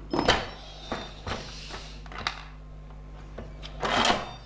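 Instant Pot electric pressure cooker lid being set on the pot and twisted shut: a few light clacks and scrapes, then a louder rub near the end as the lid turns into place.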